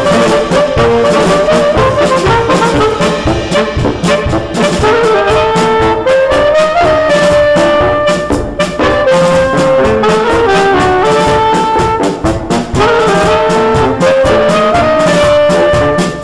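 Saxophone quartet, one player multitracked on all four parts, playing a Spanish pasodoble in harmony over percussion accompaniment.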